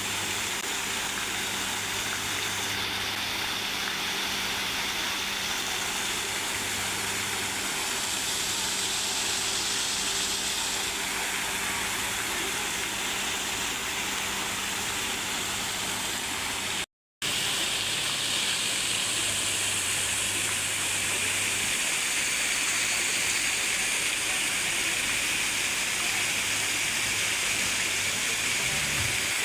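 Steady rush of running, falling water, as from a garden pond waterfall or fountain, with a faint low hum underneath. It breaks off for a moment a little over halfway through.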